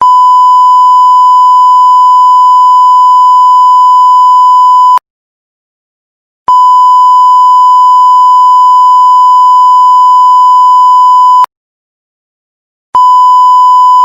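Censorship bleep: a loud, steady 1 kHz tone held for about five seconds, cut off abruptly, then repeated after a short silence, and starting a third time near the end.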